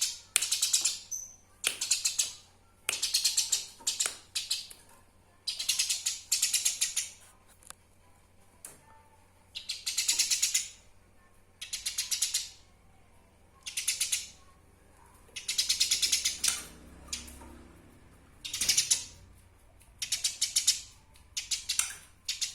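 Eurasian tree sparrow giving bursts of rapid, rattling chatter calls. There are about a dozen short bursts, each under a second, coming every second or two with brief pauses between them.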